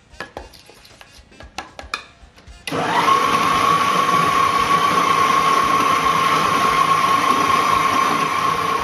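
A few light scrapes and taps of a spatula in a steel bowl of melted chocolate. About three seconds in, an electric stand mixer starts suddenly, whirs up to speed and runs steadily with a high whine, beating cake batter.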